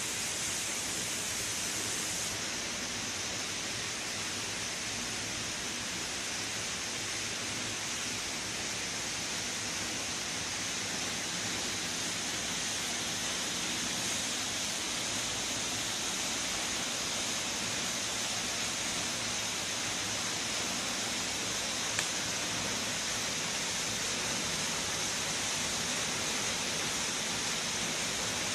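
Waterfall running: a steady rushing of falling water that does not change, with a single brief click about twenty-two seconds in.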